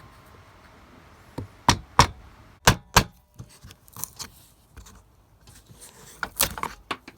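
A wood chisel being struck to chop out the waste of a halving-joint notch in dry Christmas-tree wood: a run of sharp blows, loudest two to three seconds in, then lighter knocks and a quick cluster of blows near the end.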